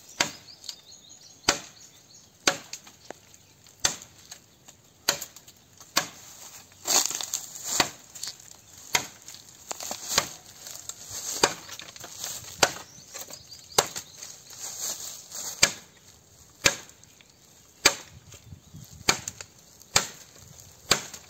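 Machete blade chopping into a green bamboo culm, sharp strikes about once a second, cutting it into lengths.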